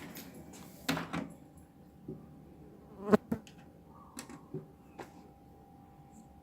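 Clicks and knocks from loading a disc into a Pioneer PD-535 CD player: the disc and tray being handled and buttons pressed. The sharpest knock comes about three seconds in, and there is a faint steady hum underneath.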